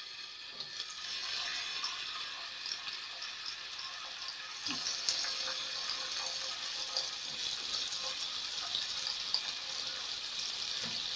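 Tomato slices sizzling in hot olive oil in a frying pan: a steady hiss with many small pops.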